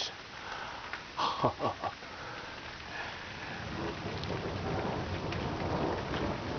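Rain falling steadily while thunder rumbles in after a bright lightning flash, growing louder through the second half.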